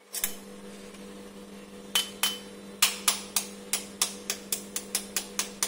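An egg tapped again and again against the rim of a bowl to crack it: a few scattered knocks, then a steady run of about three sharp taps a second from about three seconds in.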